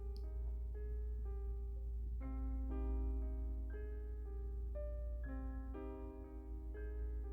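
Gentle background music led by piano, its notes changing about every half second over a steady low hum.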